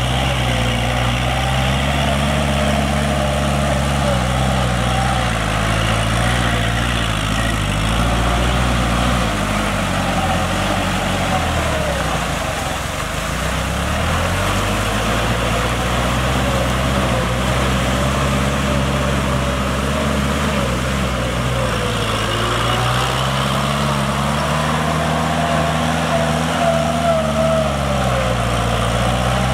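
Kubota L5018 tractor's diesel engine running under load as it drives a rear rotary tiller through a flooded paddy. About halfway through the engine note sags lower and dips in loudness, then climbs back and runs steadily again.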